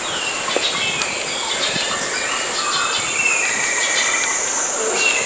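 Steady high-pitched insect buzz, with short, falling bird chirps over it.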